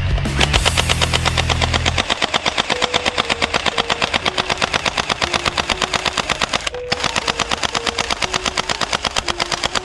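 Rapid automatic-fire sound effect of a submachine gun, about eight shots a second, with one brief pause midway, over a simple background tune.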